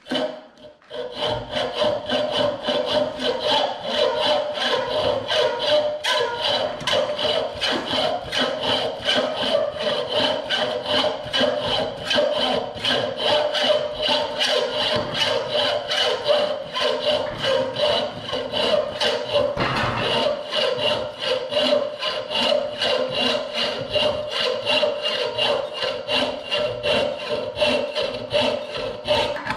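Hand hacksaw cutting through silver clamped in a bench vise, in steady back-and-forth strokes from about a second in, with a ringing tone from the metal under the strokes.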